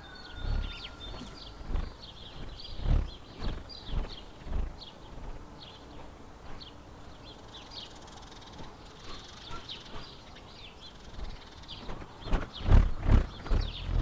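Homemade wooden bullroarer whirled on a cord, giving a pulsing whirring drone of rhythmic whooshes. The pulses weaken in the middle and come back strongly over the last couple of seconds at about three a second. Birds chirp in the background.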